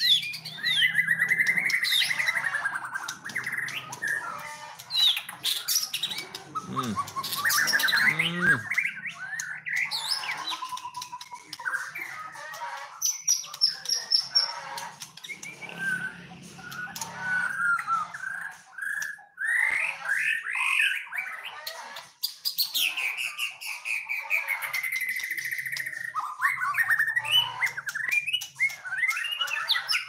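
White-rumped shama singing a long, varied song of whistled phrases, glides and fast trills, with short pauses between phrases.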